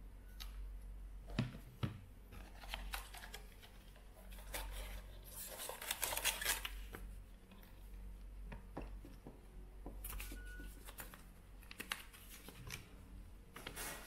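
Clear plastic clamshell packaging crackling and clicking as it is handled and opened, with a louder stretch of crinkling about halfway through. Later, paper inserts rustle as they are unfolded.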